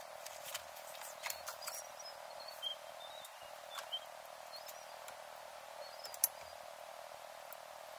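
Small metal screws and nuts clinking and rattling as they are tipped out of a small box onto a work mat and picked over: light, irregular clicks, with one sharper click about six seconds in. A few faint high chirping squeaks sound in between.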